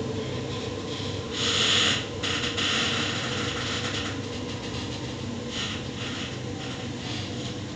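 Waratah Series 2 electric train heard from inside the carriage, running with a steady rumble of wheels on the track and a faint motor whine. Two brief hissing surges come about one and a half and two and a half seconds in.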